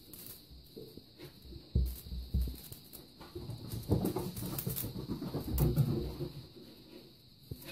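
Russian Blue kittens scuffling and pouncing on a shaggy mat as they bat at a feather wand toy: irregular soft thumps and rustling, strongest about two seconds in and again around the middle, over a faint steady high hiss.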